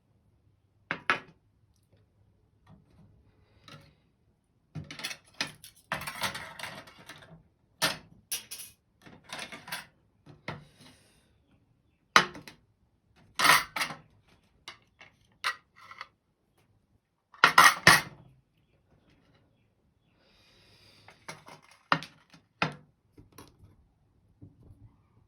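Dishes and cutlery clattering during kitchen work: irregular clinks and knocks, the loudest a few sharp strikes around the middle and about three quarters of the way in.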